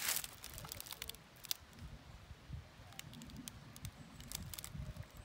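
Irregular crackles and clicks with low dull thuds, opening with a sharp rustle: footsteps and movement on dry leaf litter and stones.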